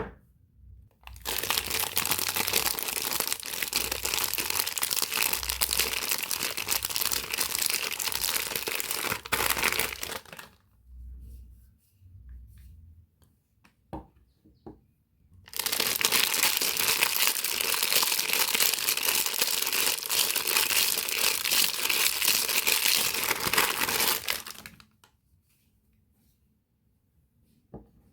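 Soap packaging being unwrapped by hand, crinkling and tearing, in two long stretches of about nine seconds each with a short pause and a few light clicks between them.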